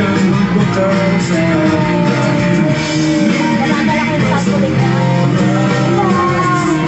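Background music: a song with a singing voice and guitar.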